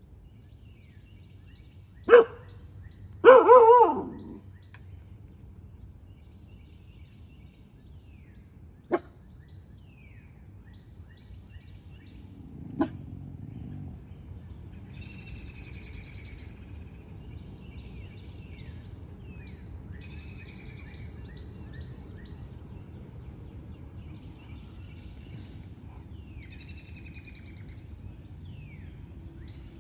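A dog barks twice about two seconds in, the second a louder doubled bark. Wild birds then sing with repeated short falling phrases over a steady outdoor background hiss.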